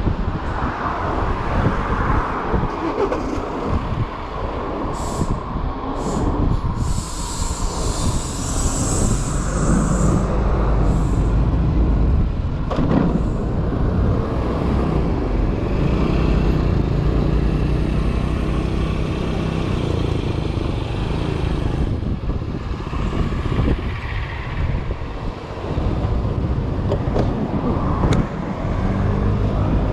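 Street traffic heard from a moving electric moped: steady wind rumble on the microphone and the engines of nearby vehicles, with a short hiss about seven seconds in.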